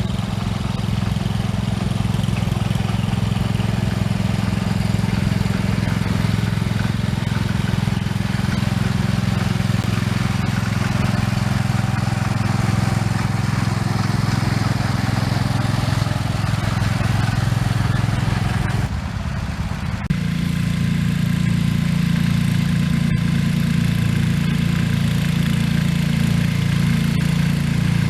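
Engine of a 1973 112 garden tractor running steadily. About two-thirds of the way through it briefly drops off, then carries on with a steadier, more even note.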